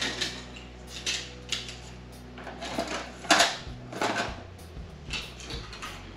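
Old hard-drive circuit boards clattering as they are dropped and stacked by hand into a plastic tub: a run of sharp knocks, the loudest a little past three seconds in.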